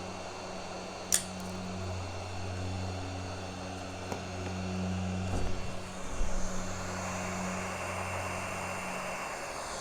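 Steady blowing of a hot-air rework station heating a laptop motherboard to desolder an eMMC chip, with a low hum under it. A sharp click comes about a second in, and a few small knocks follow a little past the middle.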